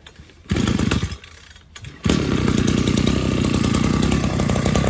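Mitsubishi TU26 brush cutter's small two-stroke engine firing briefly about half a second in and dying away, then about two seconds in starting and running steadily with a fast, even beat.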